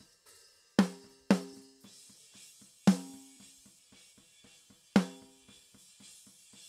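Soloed snare drum microphone track played back unprocessed, without EQ. There are four hits, each ringing on a note around 195 Hz with overtones above it, and faint hi-hat bleed ticks between them.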